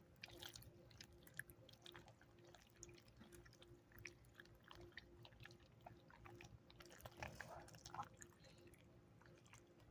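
Slime being squished and worked by hand: faint, irregular wet sticky clicks and pops, a little louder about seven to eight seconds in.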